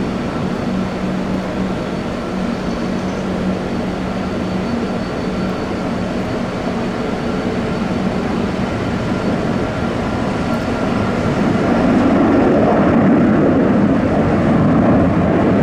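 Jet airliner engines running with a steady roar and a few steady whining tones, growing louder about twelve seconds in.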